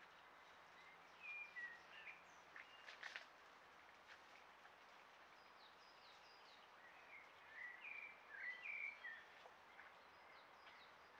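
Faint songbird calls over a steady hiss: two spells of short chirping phrases, about a second in and again around seven to nine seconds. A few faint clicks come about three seconds in.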